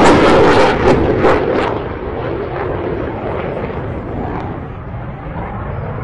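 Eurofighter Typhoon jet with afterburner lit: a loud rushing, crackling noise for the first couple of seconds, which then dulls and fades to a lower rumble.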